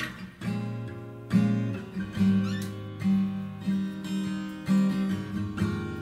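Background music: acoustic guitar strumming chords, with a new chord struck about once a second.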